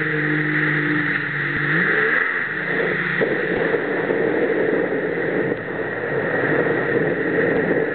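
A personal watercraft (jet ski) engine runs at a steady idle, then revs up about two seconds in. After that it runs hard under a dense rush of churning water and spray.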